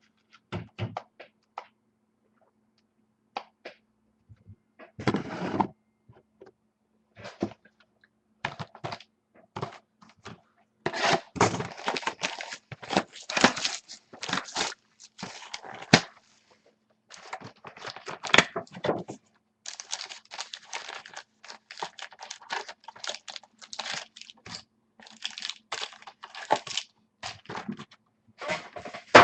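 Sealed trading-card box and packs being handled and torn open: irregular taps and thunks, then dense stretches of crinkling and tearing wrapper from about a third of the way in.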